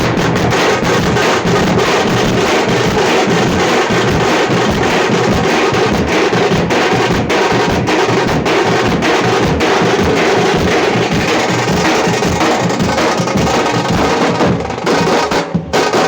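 Tamate frame drums beaten with sticks in a loud, fast, driving rhythm, dropping away near the end.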